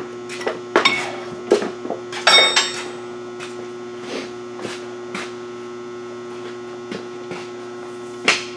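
Irregular metallic clicks and clinks of a hand wrench working a nut on the truck's steel front suspension, turning it a little further to line up the cotter-pin hole. One ringing metal clink comes about two and a half seconds in. A steady electrical hum runs underneath.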